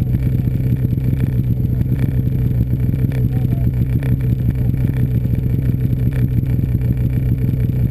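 Snowmobile engine running steadily at a constant speed, a loud, even low hum with no revving.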